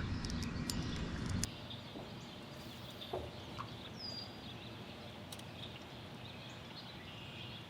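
Faint outdoor background with a short, falling bird chirp about four seconds in. There are a few light clicks in the first second and a half.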